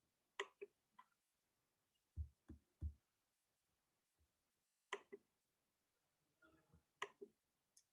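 Near silence with faint, scattered clicks from working the computer to go back to an earlier slide, and three low, soft thumps about two seconds in.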